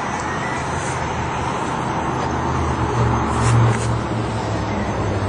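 Steady low engine rumble under a constant background noise, swelling briefly about three and a half seconds in.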